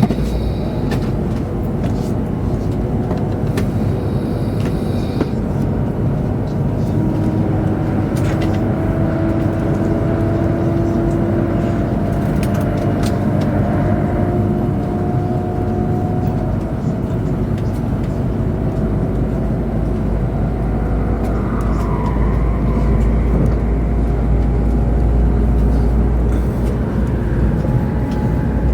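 Chinese high-speed train running at speed, heard from inside the passenger car: a steady rumble and rush of running noise with a faint whine that drifts slightly in pitch. The low rumble grows heavier in the last third.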